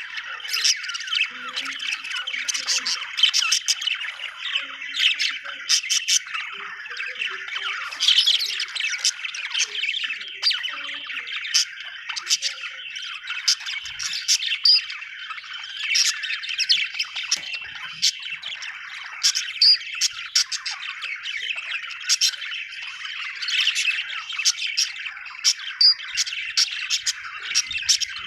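Budgerigars chattering without a break: a dense warble with many short, sharp chirps and squawks.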